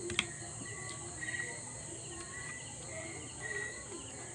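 Faint chirping: a short, high, steady note repeated about twice a second. There is one sharp click of a spoon against a dish just after the start.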